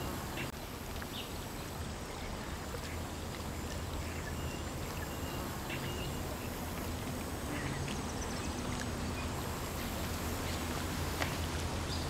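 Steady outdoor ambience: an even, water-like hiss with a low hum underneath and a few faint clicks.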